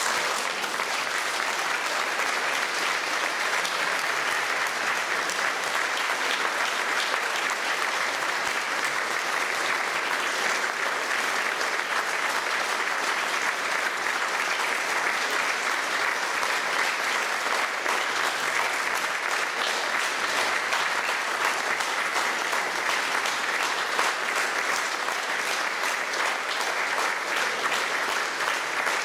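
Audience applauding steadily, a dense continuous clatter of many hands clapping.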